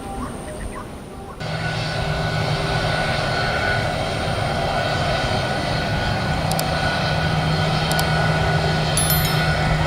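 Jet airliner's engines running: a steady rush with a low hum and a higher whine, slowly growing louder. It comes in suddenly about a second and a half in, after a quieter stretch with faint chirping.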